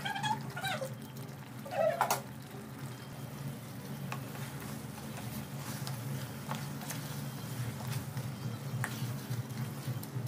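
Wooden spatula stirring thick chicken-and-potato curry in a kadai, with scattered light scrapes and clicks over a steady low hum. Two short, high-pitched cries come in the first two seconds: the first falls in pitch, the second is brief.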